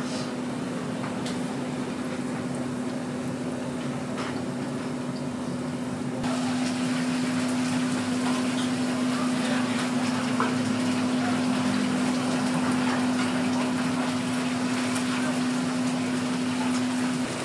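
Korean fish cakes deep-frying in a large commercial fryer: the hot oil bubbles and sizzles steadily over a steady low hum, with a few faint ticks of the metal tongs. It grows louder about six seconds in.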